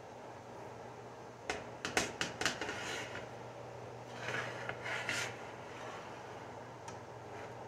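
A metal spatula and folded tortillas handled on a black griddle pan. A quick run of light clicks and knocks comes about a second and a half in, then a rougher scraping for about a second as the spatula pushes the quesadillas into place.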